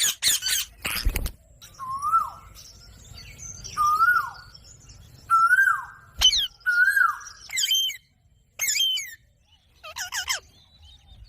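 Ringneck parrot calling: a quick run of shrill screeches, then four short whistled notes about a second and a half apart, then more shrill calls near the end.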